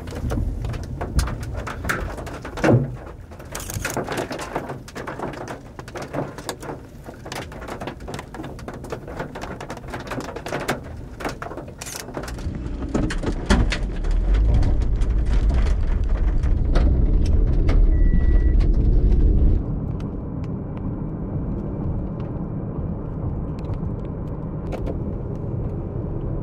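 Gusty storm wind buffeting the microphone, with many scattered sharp ticks through the first half and a heavy low wind rumble in the middle that cuts off abruptly, followed by the steady low road noise of a vehicle driving.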